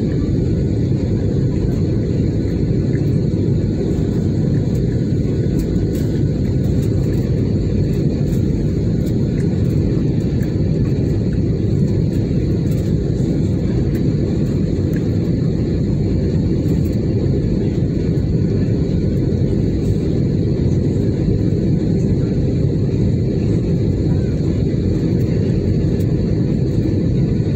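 Cabin noise of a jet airliner in flight, heard from a window seat: a loud, steady rumble of engines and rushing air with no change.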